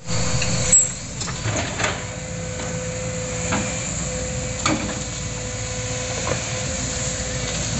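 Sumitomo hydraulic excavator's engine running with a steady hum and a steady tone while the boom lifts the bucket. About five sharp knocks come through, the loudest about a second in.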